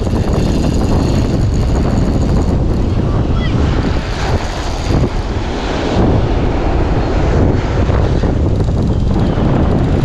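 Wind buffeting the microphone, a loud, steady rumbling hiss with constant flutter.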